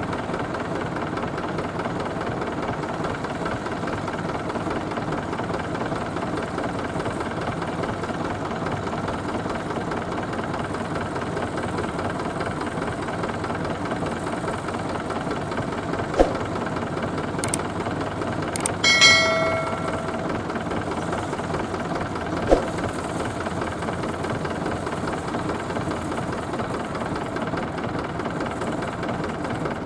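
Zetor tractor's diesel engine running steadily. A few sharp metallic clanks come about two-thirds of the way in, and a short, loud metallic squeal comes just before them end.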